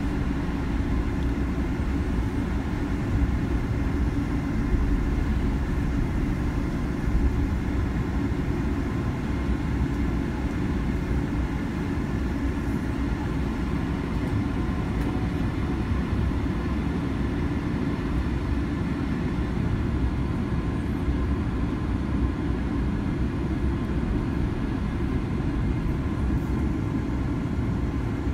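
Boeing 787-10 cabin noise while taxiing after landing: a steady low rumble from the jet engines at idle and the rolling airframe, with a faint steady whine above it, heard from inside the cabin.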